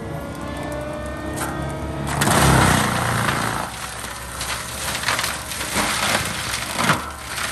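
Gyrotrac 500HF forestry mulcher on a tracked loader, engine running under load while the spinning drum grinds brush. A slowly rising whine in the first two seconds gives way to a loud burst of grinding about two seconds in, followed by scattered sharp cracks.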